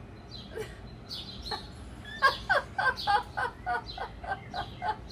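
Laughter: a rapid run of short pitched bursts, about four a second, starting about two seconds in.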